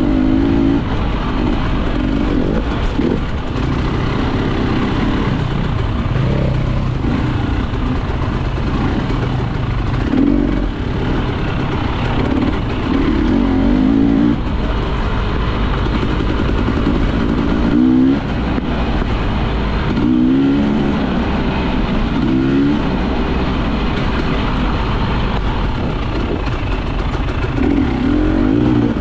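Off-road enduro motorcycle engine running hard under the rider, with the throttle opened and closed every few seconds so the revs rise and fall over a constant rumble and rough riding noise.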